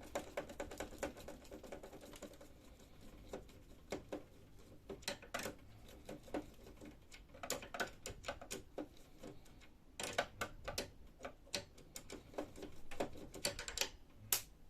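A screwdriver turning out screws from a laser printer's plastic housing, with small parts handled against the plastic. Irregular light clicks and ticks come in clusters, the busiest about ten seconds in.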